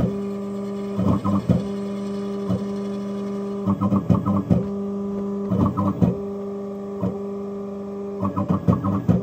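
Ghost Gunner 3S desktop CNC mill running with a steady hum. Every two to three seconds comes a short cluster of rapid chattering as the end mill cuts into the steel Glock 19 slide for an optic pocket.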